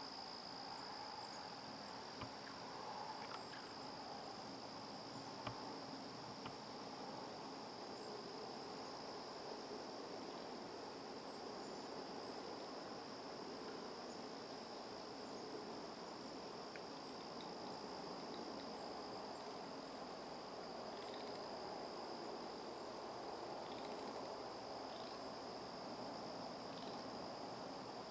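Insects, crickets or similar, trilling in one steady high note over faint woodland ambience, with a few soft clicks in the first several seconds and faint short chirps later on.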